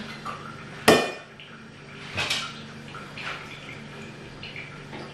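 Metal cookware clanking as a pot and its lid and a cooking utensil are handled on the stove. There is one sharp ringing clank about a second in, another just after two seconds, and lighter knocks after that.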